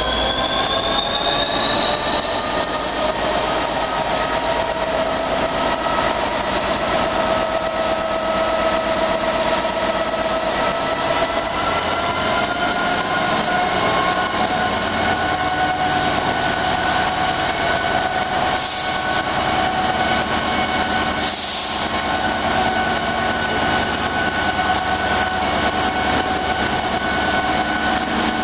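Class 66 diesel locomotive working hard as it pulls a train of empty coal hopper wagons away, its high engine whine climbing in pitch over the first couple of seconds, holding steady, then stepping up a little about halfway. The wagons rumble along under it, and there are two short hisses about two-thirds of the way through.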